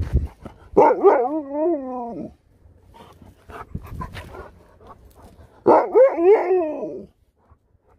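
A husky-type dog 'talking': two long howl-like vocalizations with a wavering pitch, each about a second and a half, the first about a second in and the second near the end.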